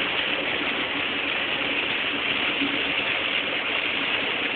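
Steady engine and road noise inside the cabin of a vehicle driving at highway speed.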